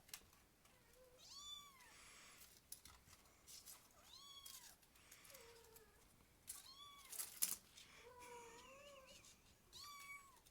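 Kittens mewing, faint: short arching mews a few seconds apart, some high and some lower, with scattered small clicks, the loudest about seven seconds in.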